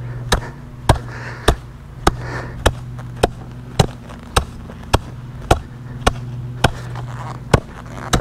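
Steel hand tamper striking fresh cold-patch asphalt to compact a pothole fill: sharp, evenly paced thuds a little under two a second, over a steady low hum.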